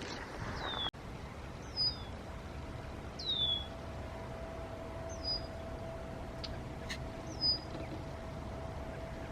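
Red-winged blackbird giving repeated short down-slurred alarm whistles, five in all, about every one and a half to two seconds. These are the scolding calls of a bird agitated by an intruder, which the speaker takes to mean a nest nearby. A faint steady hum comes in about two seconds in.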